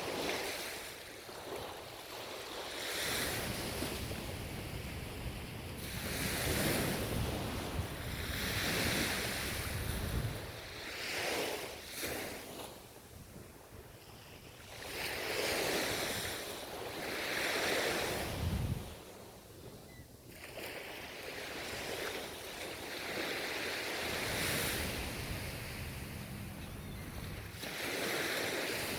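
Ocean surf: waves breaking and washing up the shore, the sound swelling and fading again every few seconds.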